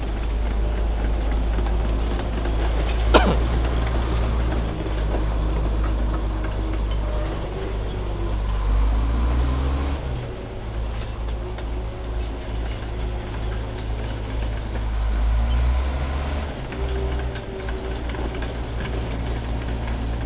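Heavy truck's diesel engine running at low revs, rising in revs twice, with one brief sharp sound about three seconds in.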